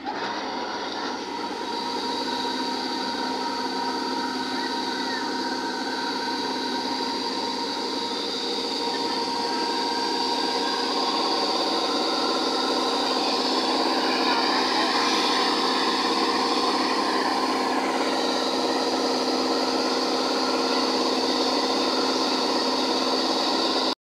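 Full-feed combine harvester running steadily with its unloading auger turning, a constant engine-and-machinery drone carrying several steady whining tones. It gets louder about eleven seconds in.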